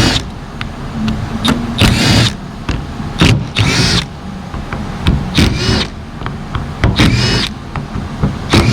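A small cordless power tool spinning out the oil pump cover bolts, running in about five short bursts, one every second and a half to two seconds.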